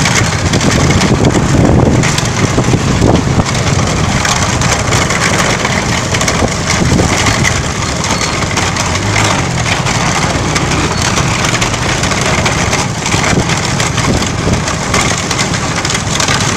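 Racing bullock cart at speed: loud, continuous rattling and clattering of its wooden spoked wheels and frame jolting over a rough dirt road.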